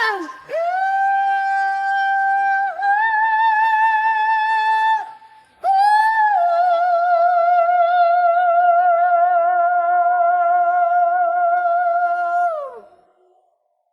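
A high solo singing voice with no backing, holding three long wordless notes with vibrato. The last note lasts about seven seconds and slides down as it ends, about a second before the end.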